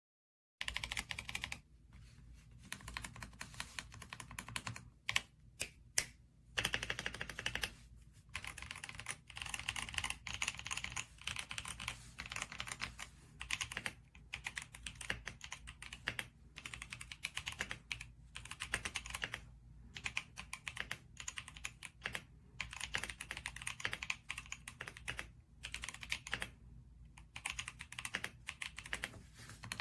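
Typing on a BOYI GMK67 65% gasket-mounted mechanical keyboard: quick streams of key clacks in runs of a few seconds, with short pauses between, starting about half a second in.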